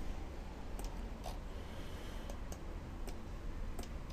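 A handful of short, separate computer mouse clicks, spaced irregularly, over a low steady hum of room noise.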